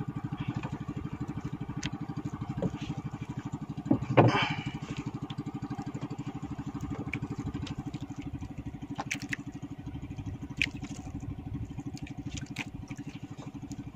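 A small engine aboard a fishing boat running steadily with a rapid, even putter. A few sharp clicks and knocks from handling fishing gear sound over it, and a brief louder noise comes about four seconds in.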